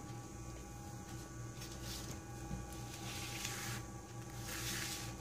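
Steady electrical hum with three soft sliding, rustling sounds, each under a second, as the iPad mini 2 and its loose glass are moved by hand across the paper-covered bench.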